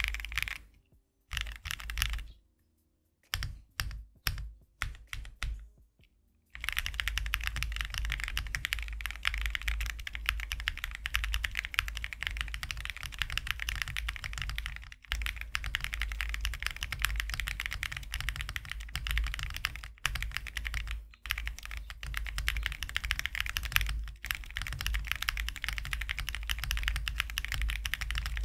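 Mechanical keyboard fitted with KTT Strawberry linear switches being typed on, a deep, thocky keystroke sound. For about the first six seconds there are only scattered keystrokes with silent gaps, then fast, continuous typing with a few short pauses.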